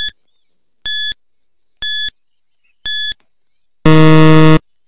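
Quiz countdown-timer sound effect: a short, high beep once a second, then about four seconds in a longer, louder, lower buzzer as the count reaches zero.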